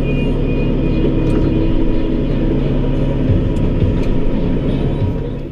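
Tractor engine running at a steady speed with machinery, a constant rumble with a steady pitch. It drops off near the end.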